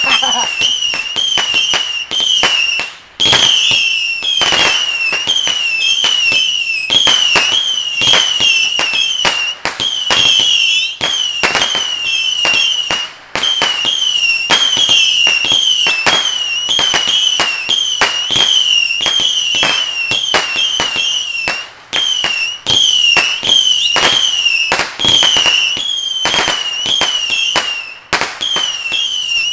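A ground firework firing a rapid string of whistling shots: each one a sharp pop with a short, high, wavering whistle, about two or three a second. The string breaks off briefly a few times.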